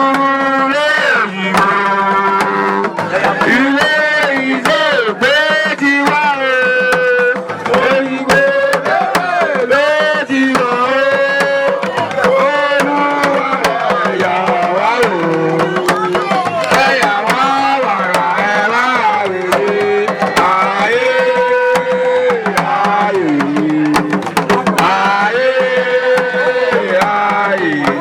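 Music of hand drums and percussion, with a melodic line whose pitch slides and bends up and down over the steady drumming.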